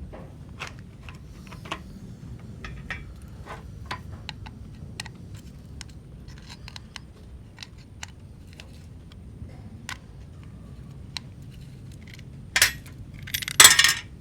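Small clicks and light metallic rattles from handling a Nikon Nikkormat FT3 film camera while its battery compartment is opened, with a couple of louder scraping clatters near the end.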